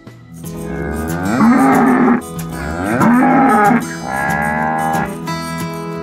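A cow mooing three times in long, drawn-out calls, over background acoustic guitar music.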